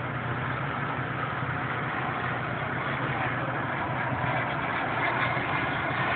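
Home-built super-scale SR-71 model jet's twin P-120 turbines heard in flight, a steady jet hiss that swells slightly in the second half.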